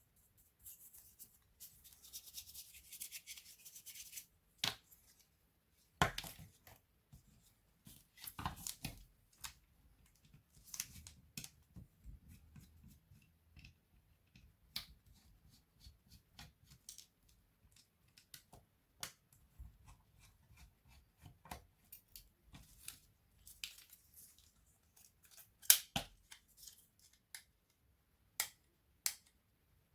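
Hands working on a disassembled laptop: scattered small plastic and metal clicks and taps of parts and tools being handled, with a brief scratchy scraping about one to four seconds in.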